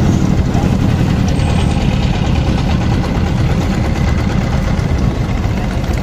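An engine running steadily close by: a loud, low, even rumble with a fast pulse.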